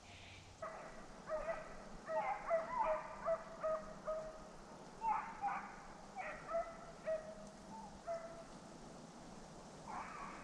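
Deer-hunting hounds baying, runs of quick bawls with short pauses between them, the sound of dogs running a deer's trail.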